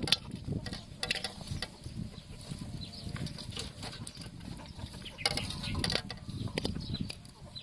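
Boiled pork rib pieces pushed off a steel tray into a large steel pan, dropping and sliding onto the metal with irregular knocks and scrapes, busiest about a second in and again between five and six seconds.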